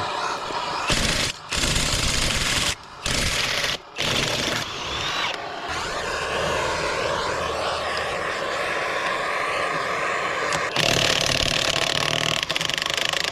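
A handheld torch flame hissing as it heats rust-seized lug nuts to free them. It cuts out briefly three times in the first four seconds, then burns steadily and gets louder again near the end.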